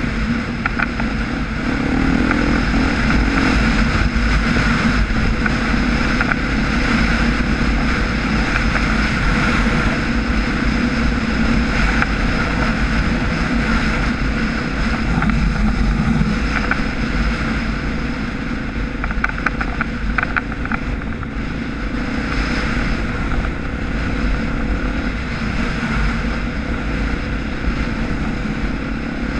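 Off-road motorcycle engine running steadily as the bike rides over rough ground, with wind buffeting the microphone.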